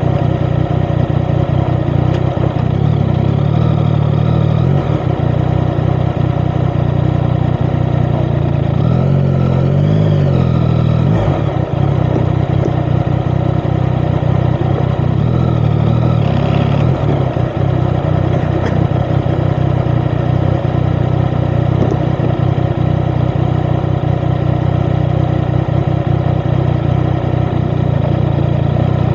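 Yamaha XSR900's inline-three engine running through an Akrapovic titanium exhaust at a steady, low engine speed. The revs rise and fall briefly about a third of the way in, and again a little past halfway.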